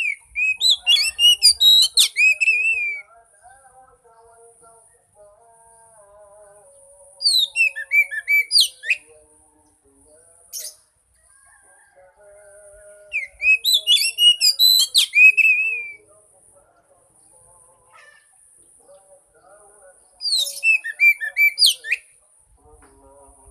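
Oriental magpie-robin song: four loud phrases of fast, varied whistled notes sliding up and down, each lasting two to three seconds, with gaps of several seconds between them.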